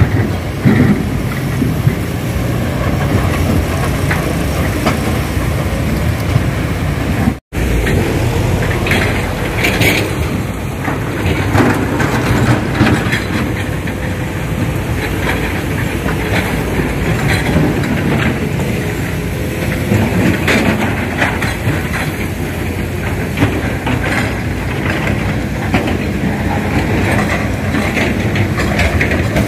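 Heavy diesel machinery running steadily: excavators working rock at a riverbank, with scattered knocks and clatter over a low engine rumble. The sound drops out for an instant about seven seconds in, then carries on much the same.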